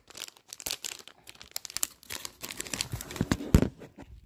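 A printed plastic blind-bag wrapper being torn open and crinkled by hand in irregular crackling bursts, with the loudest crackle about three and a half seconds in.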